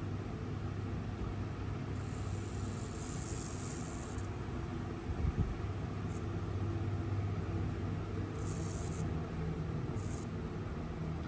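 Steady low background rumble, with one dull thump about five seconds in and a few brief, faint high hisses.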